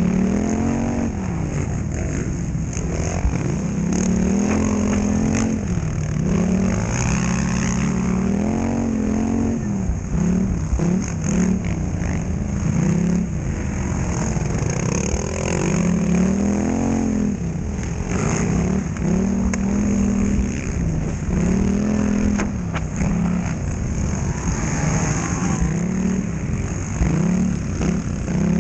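Polaris Scrambler XP1000 quad's twin-cylinder engine under race throttle, revving up and dropping back again and again, its pitch rising and falling every few seconds over a constant rumble.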